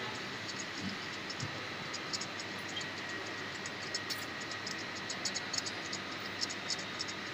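Small, irregular metallic ticks and clicks from a roller burnishing tool being turned and handled, its rollers and parts clicking against the cage, over a steady hiss.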